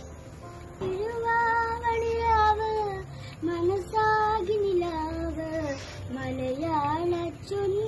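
A girl singing solo, coming in about a second in, holding long notes with ornamented turns in the melody.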